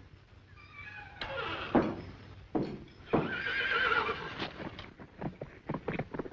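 Cartoon sound effects of a horse arriving: whinnies, then clip-clop hoofbeats that come faster near the end.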